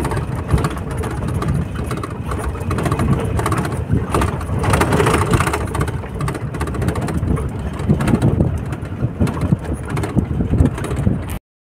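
Open-top safari jeep driving along a rough dirt track: engine and road rumble with wind noise on the microphone.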